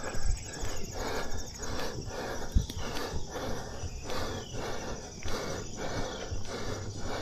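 Steady footsteps at a little over two a second, as of someone jogging, with insects chirping faintly in the background.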